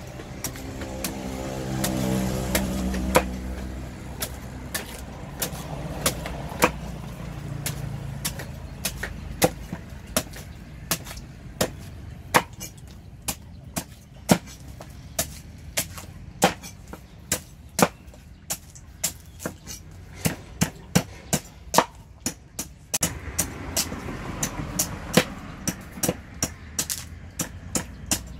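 Cleaver chopping and shaving the husk of young green coconuts on a wooden block: a run of sharp chops that quickens to about two a second in the second half. A motor vehicle's engine runs alongside in the first few seconds.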